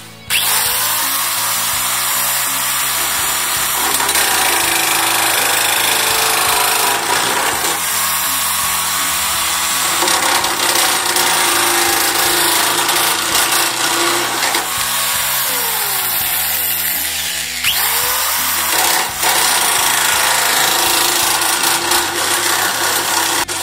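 Electric drill driving a sheet-metal cutting attachment, cutting away the edge of a steel panel; it runs loud and almost without a break, with a few changes in pitch as the load shifts.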